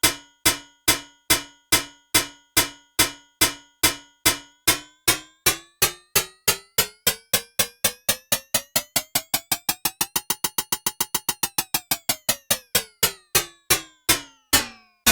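Synthesized metallic striking sound: a train of sharp hits, each ringing with bell-like overtones. The hits speed up from about two a second to about six a second around the middle, then slow again, while their ringing pitch rises and falls back.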